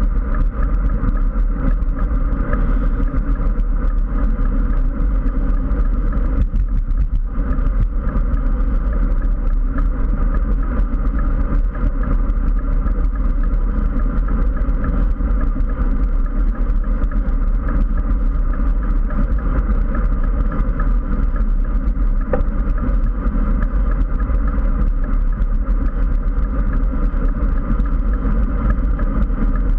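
Steady, loud wind rumble on the microphone of a handlebar-mounted GoPro on a road bike at riding speed, easing slightly for a moment about seven seconds in.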